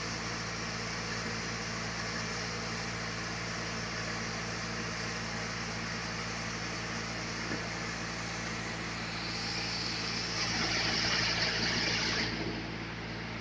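Sawmill machinery running with a steady engine hum. Near the end, a louder high hiss joins for about three seconds and then cuts off sharply.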